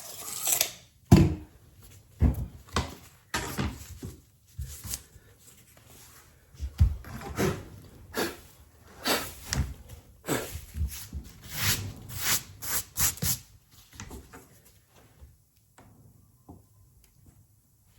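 Floor being cleaned ahead of laying vinyl planks: a run of irregular brushing and scraping strokes with a few knocks on the subfloor. The strokes stop about 14 seconds in.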